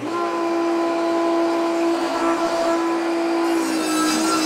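Portable table saw running with a steady whine. About three and a half seconds in, the pitch starts to dip and waver and a hissing cut noise rises as the blade begins ripping a board into thin trim strips.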